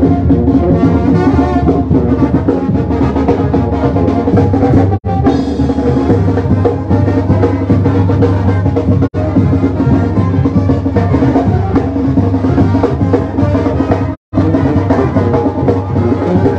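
Mexican brass band playing while marching: sousaphone, trumpets and trombones over a bass drum with cymbal and a snare drum keeping the beat. The sound cuts out for a split second three times.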